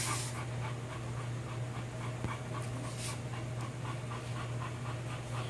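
Shar Pei dogs panting in a quick, even rhythm, over a steady low hum.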